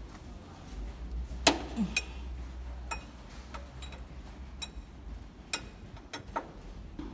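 Irregular metallic clicks and clinks of a spanner working on an excavator's hydraulic hose fittings, with one sharper clank about a second and a half in. A low steady hum runs underneath.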